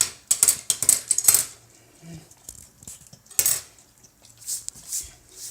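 Metal fork clicking and scraping as a golden retriever licks and mouths peanut butter off it, the tines knocking against her teeth. A quick run of clicks in the first second and a half, then more clatter about three and a half seconds in and again near the end.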